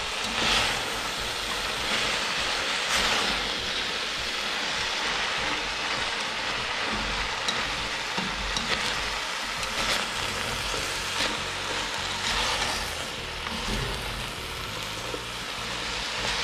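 Chopped callaloo leaves with onion, scallion and carrot sizzling in oil in a stainless steel pot while a slotted spatula stirs them. The sizzle is steady, with louder scrapes and leaf rustles every few seconds as the spatula turns the greens.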